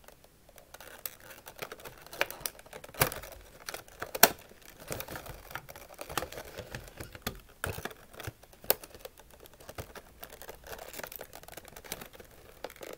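Hard clear plastic Rubik's cube display boxes being handled: scattered clicks and taps with light crinkling as the boxes are lifted, moved and set down, with the sharpest clicks about three and about four seconds in.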